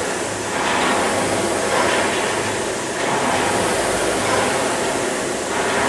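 Indoor rowing machine's air-resistance flywheel whirring, surging with each drive stroke and easing on the recovery, about once every two and a half seconds.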